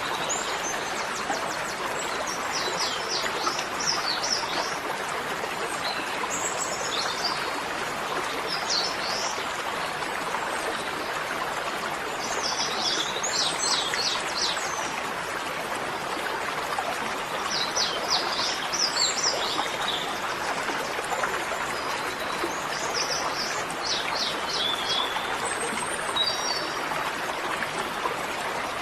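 Bird chirps in short rapid clusters every few seconds, over a steady rushing noise like running water.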